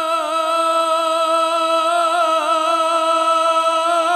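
A man singing a naat, holding one long note with wavering ornaments and no break for words.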